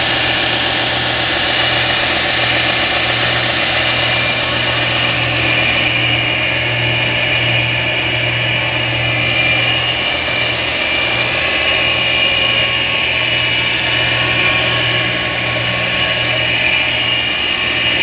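Rockford 6-inch by 48-inch belt and 10-inch disc sander combo running steadily: a constant low motor hum under a higher, even whir.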